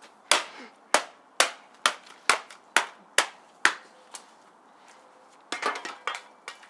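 A run of about eight sharp knocks, like hammer blows, evenly spaced at about two a second. Near the end comes a quicker cluster of clattering knocks.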